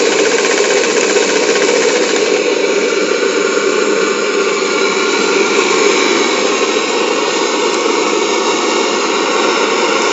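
Wilesco D-49 model steam engine running steadily under steam, turning a paddle wheel through a chain-and-sprocket drive: a dense, even mechanical clatter and hiss.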